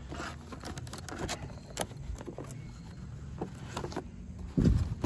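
Stiff clear plastic blister packaging crackling and clicking as it is handled and opened, over a steady low hum, with one dull thump a little before the end.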